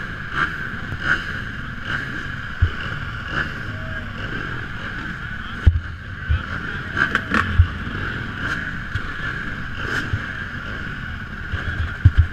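Motocross bikes idling together at the starting gate, a steady drone. A few short dull knocks come through over it.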